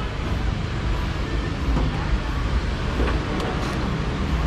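Steady low rumble of road traffic, with a few faint ticks about three seconds in.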